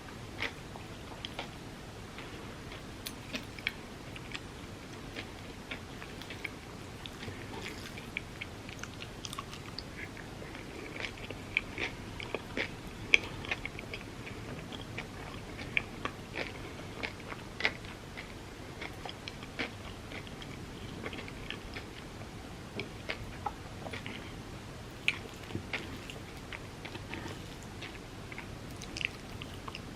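Close-miked chewing and biting of chocolate-filled crepes, with many short, sharp wet mouth clicks scattered irregularly throughout.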